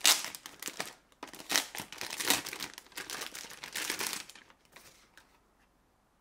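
Plastic packaging crinkling and tearing as it is pulled open to unwrap a drone charging hub, in irregular rustles that die away about five seconds in.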